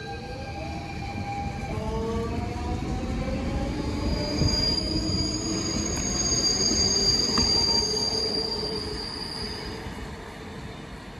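DSB Litra SA S-train electric multiple unit pulling out, its traction motor whine rising in pitch over the first couple of seconds. Then its wheels squeal with a steady high screech for about five seconds as it passes, the sound growing louder and then fading away.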